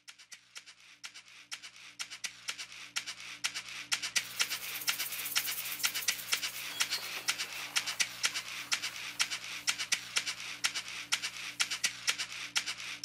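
Rapid, irregular clicking and crackling, sparse at first and thickening after a few seconds, over a faint steady low hum.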